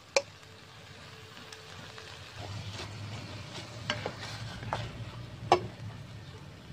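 Spatula scraping and clacking in a frying pan while fried corn kernels are stirred and scooped out into a bowl, over a light sizzle of the hot pan. There are a few sharp clacks, the loudest near the end.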